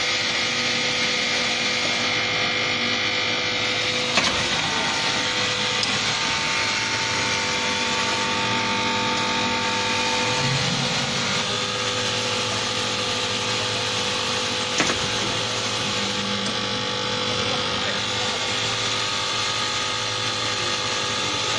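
High-speed CNC coil nail making machine running steadily, a dense mechanical din with a couple of sharp knocks.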